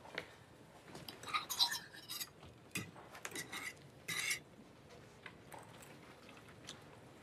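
Metal fork clinking and scraping against a ceramic plate as it cuts into an omelette, in a quick run of short strokes from about one second in, the last and longest scrape a little past four seconds.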